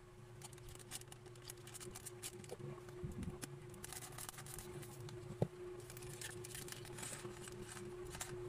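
Faint room tone: a steady low hum with scattered small clicks, and one sharper click about five and a half seconds in.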